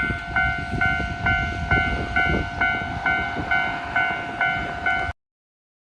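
JR Shikoku level crossing's warning bell ringing its repeated 'kan-kan' tone about twice a second over a low rumble. It cuts off suddenly about five seconds in.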